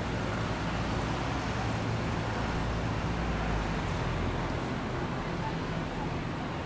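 Steady city traffic noise at a street intersection: vehicle engines running and passing, with a constant low engine hum under an even wash of road noise.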